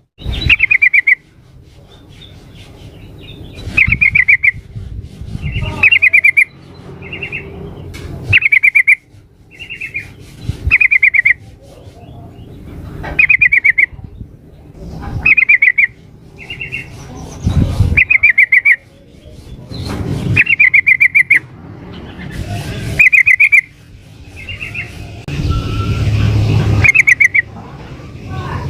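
Female yellow-vented bulbul (trucukan) calling, short bubbly chattering phrases repeated every second or two. Each phrase comes with low thuds. The calls are the kind keepers play to draw an answer from a male.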